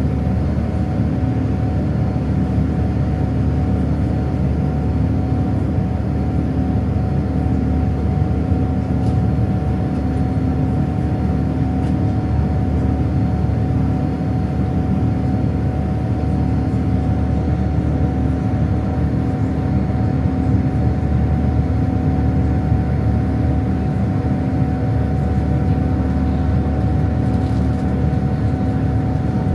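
Boeing 787-9 jet airliner cabin noise: a steady engine and airflow rumble with a few faint steady tones, unchanging throughout.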